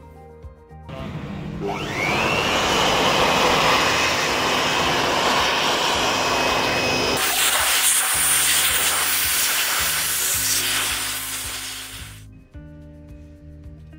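A small electric motor spins up with a rising whine, then runs steadily under a loud rush of air, and stops about twelve seconds in.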